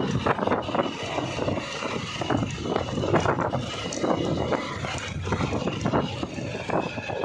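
Motorcycle running along a rough dirt track. Its engine noise is mixed with irregular rattles and knocks as it rides over the bumpy ground.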